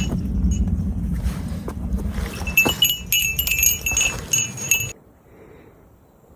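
A small metal bell jingling in quick repeated strikes, in two runs, over a low rumble; it all stops about five seconds in.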